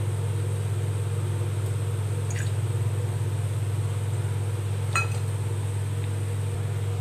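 A steady low hum, with two faint ticks a couple of seconds apart, as a pool of gingelly oil heats in an aluminium kadai over a gas flame.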